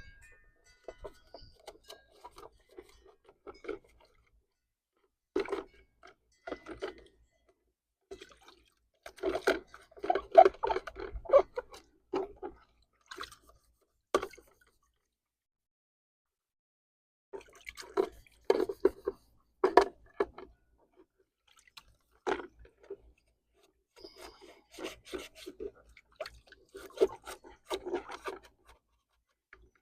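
Bird feeders being washed out: water dripping and splashing, with clattering and knocking as the feeders are handled, coming in irregular bursts with a few quiet seconds about halfway through.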